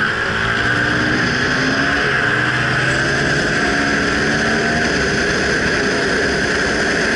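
Suzuki DR-Z400SM single-cylinder four-stroke engine accelerating, its revs climbing, dropping once at an upshift about three and a half seconds in, then climbing again, under steady wind noise. Later in the stretch the engine tone sinks into the wind rush.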